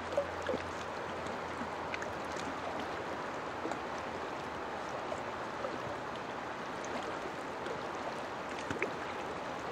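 River water rushing steadily over rocks, with a few faint clicks.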